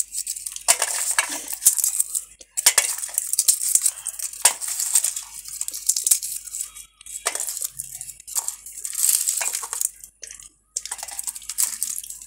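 Roasted jackfruit seeds being shelled by hand: the dry white husks crackle as they are cracked and peeled off, in irregular bursts with sharp clicks. Now and then a peeled seed clinks into an aluminium bowl.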